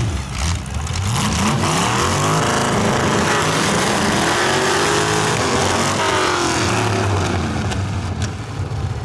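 Demolition derby car engine revving hard: its pitch climbs over a couple of seconds, holds high, then falls back, with lower engine tones running underneath.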